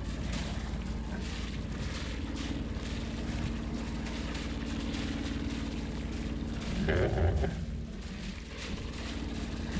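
Sailboat's engine running steadily at low speed, with wind noise on the microphone. There is a short, louder noise about seven seconds in.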